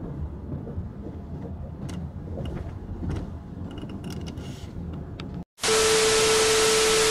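Low steady road and engine rumble inside a moving car. About five and a half seconds in it cuts out, and a loud burst of TV static hiss with a steady beep tone takes over: a static-glitch transition sound effect.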